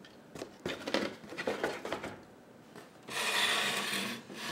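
Handling noise from the opened electricity meter: a few short scrapes, then about a second in the last half a longer, louder rasping rub as its plastic and metal parts are moved.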